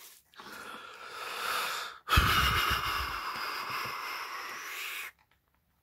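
Two long breaths close to the microphone, the second louder and lasting about three seconds before cutting off suddenly.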